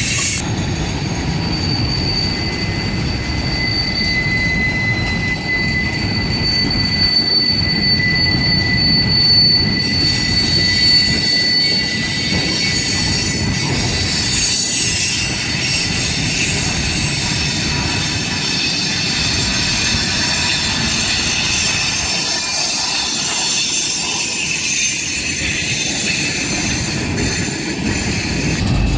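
Freight cars of a long train rolling past, with a steady low rumble of wheels on rail. A high, thin wheel squeal rings over it for roughly the first half and then dies away.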